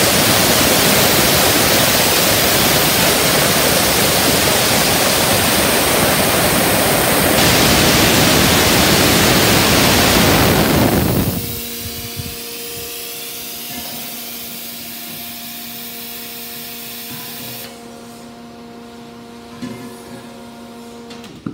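Compressed air hissing hard out of a valve opened on an Air Systems TA-3 breathing air compressor, cutting off suddenly after about eleven seconds. The 120-volt electric compressor keeps running underneath with a steady hum, which gets quieter near the end.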